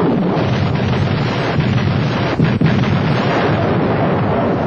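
Truck-mounted multiple rocket launcher firing a salvo: a loud, continuous rushing roar, with two sharper cracks about two and a half seconds in.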